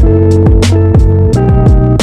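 Background music: a produced track with plucked guitar-like notes over a steady electronic beat and sliding bass.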